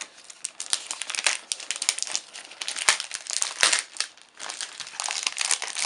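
Thin clear plastic wrapping crinkling and crackling as it is peeled and pulled off a packaged leather iPad case, in quick irregular crackles with a brief lull about four seconds in.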